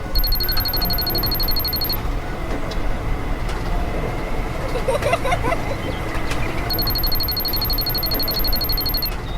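Rapid high-pitched electronic beeping over a steady low rumble. The beeping comes in two stretches of about two seconds each, one near the start and one near the end.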